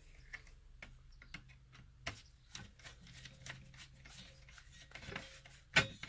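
Scattered light clicks and ticks from a screwdriver and wire being worked onto a terminal screw inside an AC disconnect box, with one sharper, louder click near the end.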